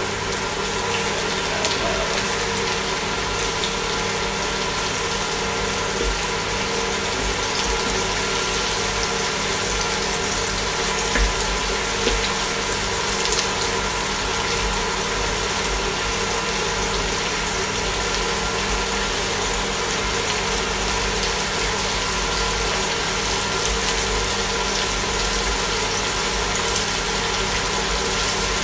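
Salmon steak, onion and garlic sizzling in olive oil in a frying pan: a steady hiss. Under it, the induction cooktop hums steadily, with a low hum that pulses about once a second.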